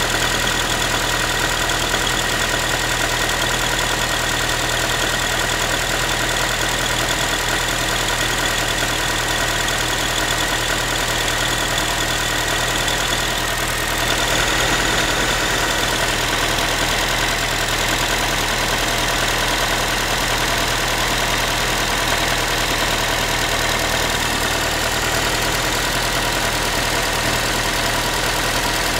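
Ford Focus 3 1.6-litre 125 hp petrol engine idling steadily after a cold start, with a tinny, pot-and-tin-like knocking noise whose cause the owner cannot identify. The level dips briefly about halfway through, then runs a little louder.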